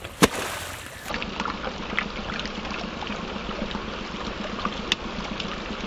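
A crowded shoal of catfish churning and splashing at the pond surface as they feed: a steady wash of water full of small splashes, starting about a second in. A single sharp click comes just before it.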